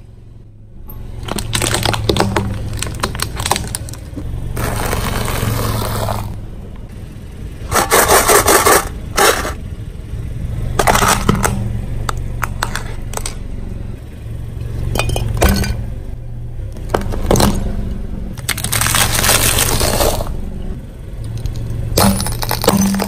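Car tyre rolling slowly over plastic toys and crushing them: a series of cracking, crunching bursts, with the car's engine humming low and steady underneath.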